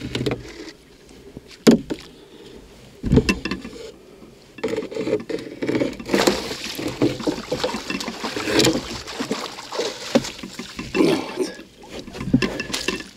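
A small pike thrashing and splashing at the surface beside a rowboat as it is scooped into a landing net, with water pouring off the net as it is lifted out. Two sharp knocks against the boat come before the splashing starts.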